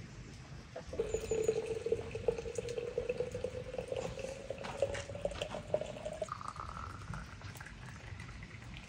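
Water streaming from a samovar's tap into a tall glass bottle of pomegranate seeds, starting about a second in. The filling note climbs steadily as the bottle fills, jumps higher about six seconds in, and keeps rising.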